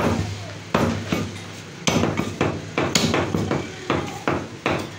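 Butcher's cleaver chopping goat meat and bone on a wooden log chopping block: about ten sharp chops, spaced out at first and coming faster in the second half.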